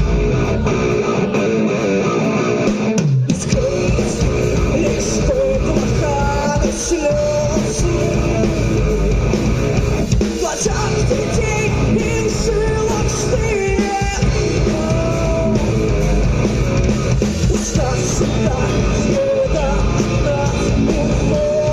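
Live rock song: a singer's voice carrying the melody over guitar and the band.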